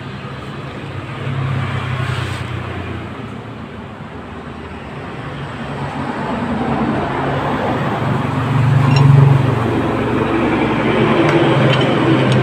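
Motor vehicle engine running, growing louder from about four seconds in and peaking about nine seconds in.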